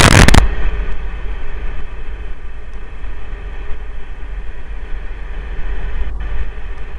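Steady road and engine noise inside the cabin of a vehicle cruising on a sealed highway: a low rumble with a hiss of tyre and wind noise. It is preceded by a brief, loud burst of noise right at the start.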